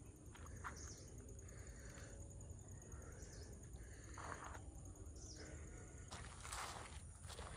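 Faint outdoor ambience: a thin, steady high insect trill over a low wind rumble, with soft scuffing steps on a rough path every second or so, the loudest near the end.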